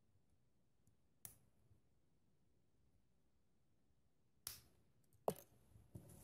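Small plastic building-brick parts clicking as they are pressed together by hand: one faint click about a second in, then a cluster of sharper clicks and knocks in the last two seconds, the loudest just after five seconds.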